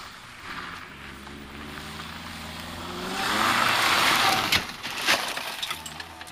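Honda CRX rally car approaching on a gravel stage with its engine revs climbing, then sliding past close by in a loud rush of tyres and thrown gravel, followed by a few sharp clicks of stones.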